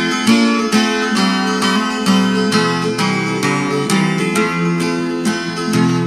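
Acoustic guitar playing a picked accompaniment to a folk ballad, in an instrumental gap between sung lines, plucked notes following one another steadily.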